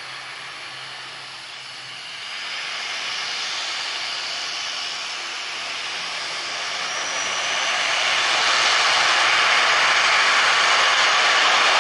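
ATR 72-500 twin turboprop engines and propellers running up to takeoff power. The hiss and drone grow louder in two steps, about two seconds in and again around eight seconds, with a faint rising whine in between.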